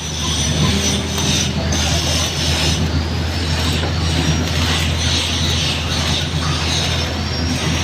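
Stick (SMAW) welding arc with an E7018 electrode crackling steadily on the root pass of a 24-inch pipe flange joint, over a steady low hum.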